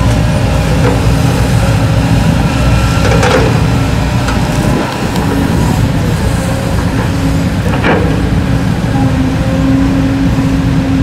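Kobelco crawler excavator's diesel engine running steadily under load as it digs soil and rock, with a few short clanks about three seconds in and again near eight seconds. A steady drone strengthens near the end.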